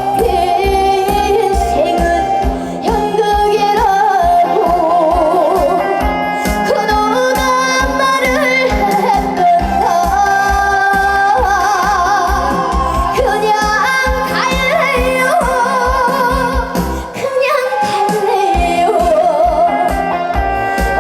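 A woman singing a Korean trot song over a backing track with a steady bass beat, her voice wavering with heavy vibrato and ornaments. The beat drops out for a moment about three-quarters of the way through, then comes back.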